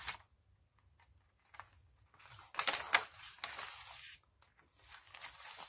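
Pages of a handmade paper junk journal being turned by hand: a quiet start, then paper rustling and flapping in two spells, the first about two and a half seconds in and the second near the end.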